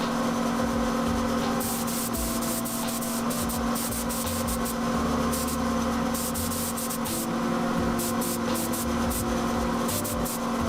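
Paint spray gun hissing as the base coat goes onto the Yamaha DT125 frame, in irregular passes over a steady hum.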